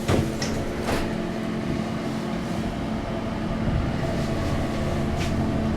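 Kone glass passenger lift travelling upward: a steady hum and low rumble from the moving car, with a faint click at the start.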